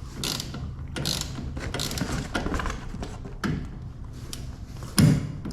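Ratchet wrench clicking in short, uneven strokes as a stiff nylon lock nut is worked loose on a toolbox wheel's axle bolt, with one louder knock near the end.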